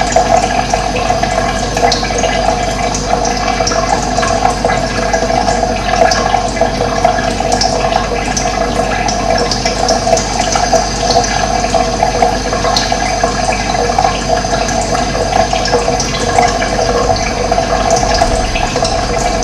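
Running water flowing steadily, a constant rush that never pauses.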